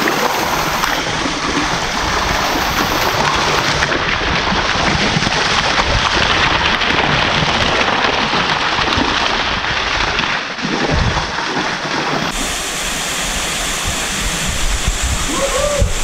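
Waterfall pouring straight down onto a person's head and the camera under it: a loud, steady rush of falling water.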